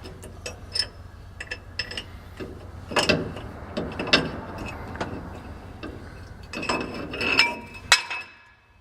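Metal clinks and scrapes of tools and parts as a Model A Ford transmission is worked into place, with louder ringing clanks about three, four and seven seconds in; the sound drops off suddenly near the end.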